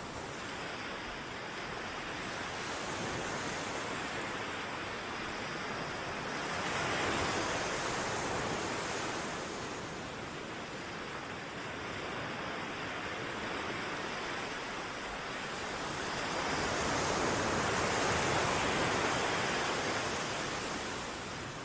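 Ocean waves washing ashore: a steady rushing hiss that swells twice, about seven seconds in and again near the end, as waves break and draw back.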